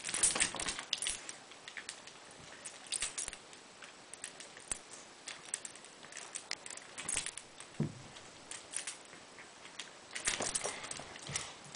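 Dog tags on a small dog's collar jingling in irregular bursts of light clinks as the dog shakes and tosses a rope tug toy on a blanket.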